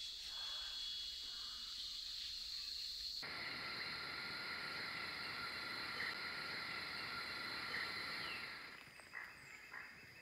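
Rainforest insects droning in a steady high-pitched chorus, whose sound changes abruptly about three seconds in and again near the end. In the last second or so a run of short, evenly repeated animal calls joins in.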